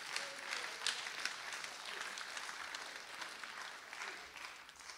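Audience applauding after a punchline, a dense patter of clapping that fades away near the end.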